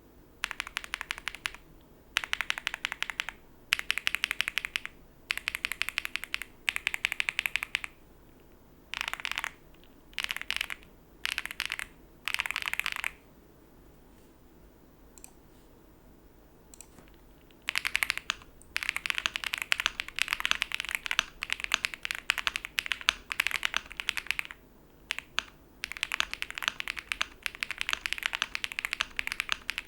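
Typing on a Leobog Hi8 aluminium mechanical keyboard with Akko Yellow Pro linear switches, nearly stock: fast runs of keystrokes in short bursts. The typing pauses for a few seconds about halfway through, with only a couple of single taps, then picks up again as steady, dense typing.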